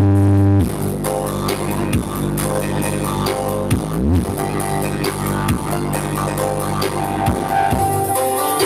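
Loud electronic dance music played through a large sound system, with a steady beat and deep bass notes that slide up and down in pitch.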